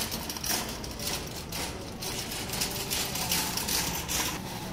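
Shop background noise: irregular rustling and light clatter over a steady low hum.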